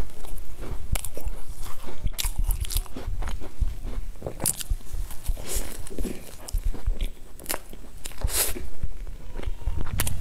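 Close-miked eating of a soft cream-filled bun: the bun torn apart, then bitten and chewed, with many scattered sharp crackly clicks.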